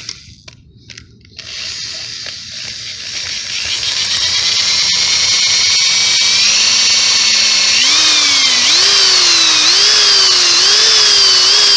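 Electric drill boring out a motor-mount bolt hole in a 66/80cc bike engine case, enlarging it for M8 threads. It starts about a second and a half in and runs steadily, then in the last third its speed repeatedly rises and falls as the bit bites.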